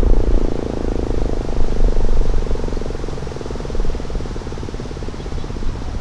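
ASC T-121 tornado siren's steady Alert tone fading as the siren winds down, its sound turning into a fluttering pulse as the rotor slows, under a low rumble.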